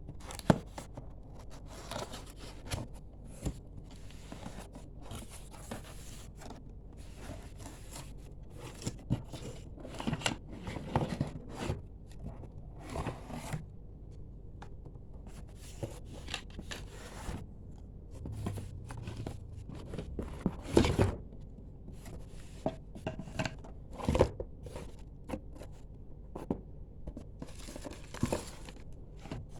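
Handling noise as a boxed paint-sprayer kit is unpacked: irregular rustling and scraping of packaging, with a few sharper knocks.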